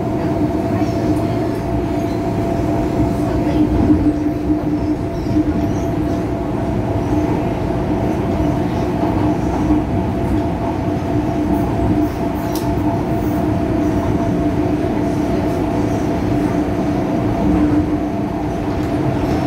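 MTR M-Train electric multiple unit running at steady speed, heard from inside the car: a continuous rumble of wheels on rail with a steady two-note hum.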